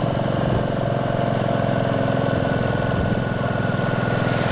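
Royal Enfield Classic 350's single-cylinder engine running at low revs under way. It gives a steady, even beat of firing pulses, the low-revving thump of a big single.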